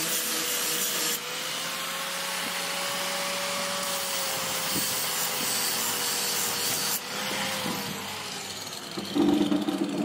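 Die grinder with a flap disc grinding the paint off the edge of a steel lawn mower blade. The grinder's whine runs steadily over the rasp of the disc, and the sound dips briefly twice. About nine seconds in the whine falls in pitch and a louder, lower mechanical hum takes over.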